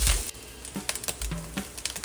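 Light background music. A brief burst of frying sizzle comes at the very start, and a few soft clicks and scrapes of a silicone spatula against the wok follow.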